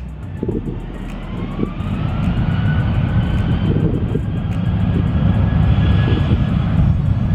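Jet airliner's engines whining over a heavy rumble, growing louder as the aircraft comes closer, the whine rising in pitch over the first few seconds. Strong wind buffets the microphone.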